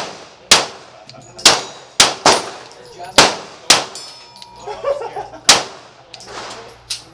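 Springfield XD(M) 5.25 9mm pistol firing about seven shots at an uneven pace, some in quick pairs, with steel targets clanging from hits.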